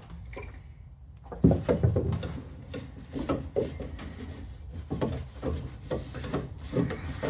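Bar clamps being handled on a workbench: irregular light knocks and rubbing of wood and metal, starting about a second and a half in.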